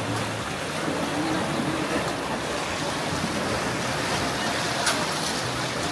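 Steady rush of strongly flowing water at a bridge, with one short click about five seconds in.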